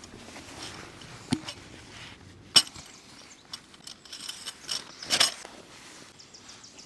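Tent-pitching gear being handled: a dull knock, then a sharp knock, then rustling and clinking as a metal tent stake is drawn from a fabric stake bag and the tent's canvas and corner strap are handled.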